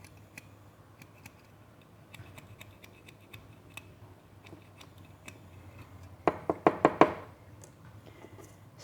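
A stick scraping and clicking inside a Zippo lighter's metal flint tube, clearing out leftover residue of old, disintegrated flint; faint scattered scratches and clicks, then a quick run of about six sharper clicks a little past six seconds in.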